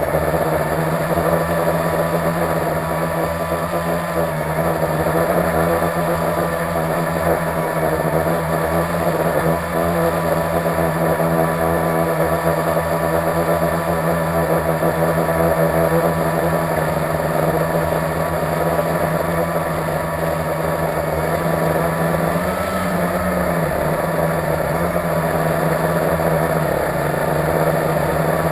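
Blade 350QX quadcopter's four electric motors and propellers buzzing steadily in flight, with a brief rise and fall in pitch about 22 seconds in.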